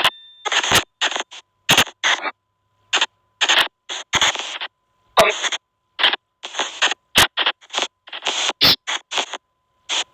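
Spirit-box app sweeping: short, chopped bursts of white noise and radio-like fragments, a few per second at irregular spacing with dead silence between them, over a faint steady whistle.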